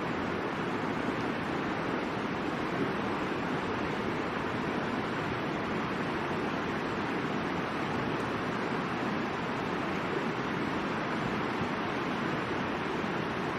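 River water rushing in a steady, unbroken wash, with a couple of faint pops from the campfire.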